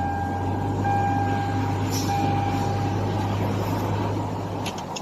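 Toyota Land Cruiser engine idling steadily just after starting, then stopping near the end. An electronic warning tone beeps on and off over it.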